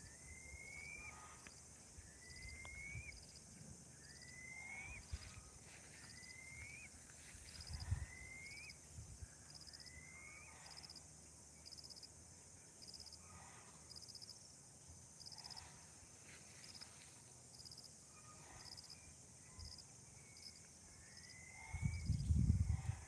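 A bird calling a short rising whistle over and over, about every second and a half, over a steady high insect drone and a regular high chirp about twice a second. The whistles pause midway and resume near the end, when a louder low rumble comes in.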